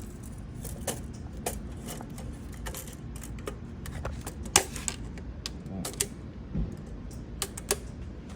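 Scattered light clicks and taps of engine parts being handled, irregular and about a dozen in all, the sharpest about four and a half seconds in.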